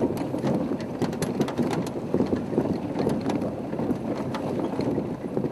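Safari game-drive vehicle moving slowly over rough ground: a dense, irregular rattling and crackling with some wind noise on the microphone.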